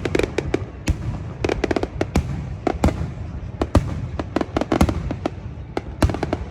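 Fireworks going off: a rapid, irregular series of sharp bangs and cracks, several a second, over a steady low rumble.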